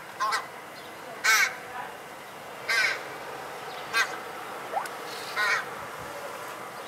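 A crow cawing about five times, each caw short and a second or more apart, over a faint steady background hiss.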